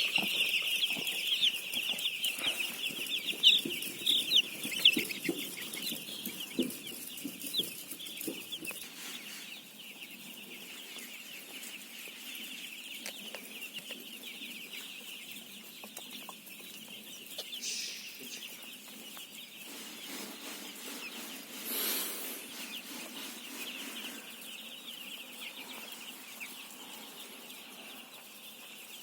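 A brood of chicks peeping continuously, many high, short chirps overlapping, loudest and busiest over the first eight seconds or so, then settling to a steady quieter chorus. A short rush of noise breaks in about 22 seconds in.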